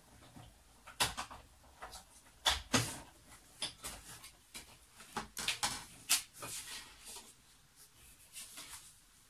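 Irregular clicks, taps and short rustles of paper and crafting tools being handled, the loudest about a second in and again around two and a half to three seconds in.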